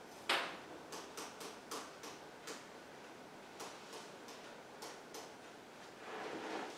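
A sharp click just after the start, then about a dozen lighter clicks and taps at irregular intervals, as small objects are handled on a table, with a soft rustle near the end.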